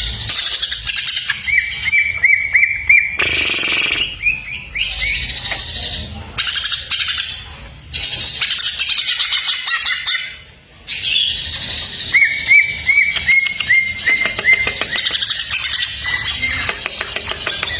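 Cucak ijo (green leafbird) singing a fast, varied, near-continuous song packed with mimicked phrases, including runs of repeated high notes, with a brief pause about ten seconds in.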